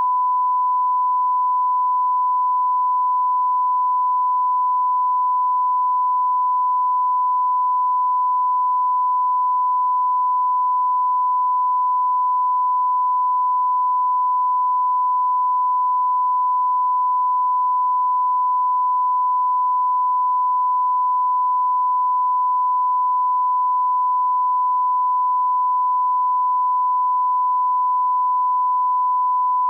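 Censor bleep: a single steady beep tone held without a break, the standard bleep laid over swearing.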